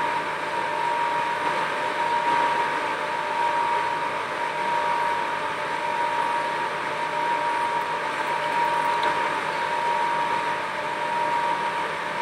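Small electric motor of a sanitizer pumping system, switched on through the timer's relay, running steadily with a constant whine.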